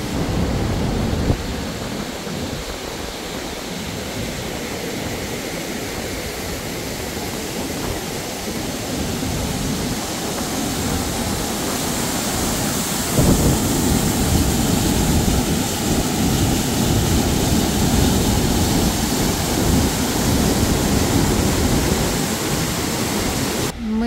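Large Alpine waterfall roaring close by: a steady, dense rush of falling water, growing a little louder about halfway through.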